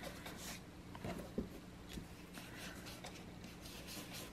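Faint rubbing and dabbing of a small ink blending tool against the torn edges of embossed cardstock, with a couple of soft taps about a second in.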